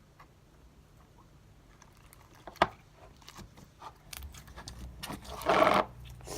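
Old Nickelodeon slime being handled and squeezed: a sharp click, then scattered small pops and clicks, and a short loud squelch near the end.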